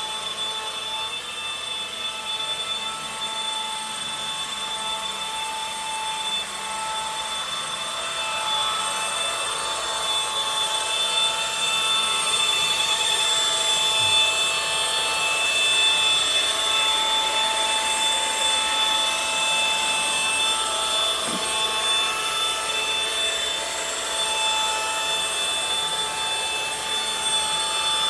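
Electric machine polisher running on car paint: a steady whine with a hiss, getting louder about eight seconds in.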